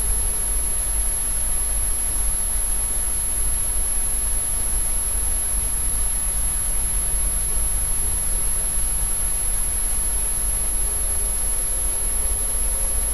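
Steady background hiss of the recording with a low hum underneath and a faint high-pitched whine; no recitation.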